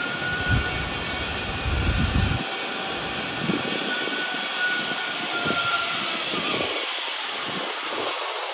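Zip-line trolley running along the steel cable, a steady rushing whir with a faint thin whine. Wind buffets the microphone in the first couple of seconds.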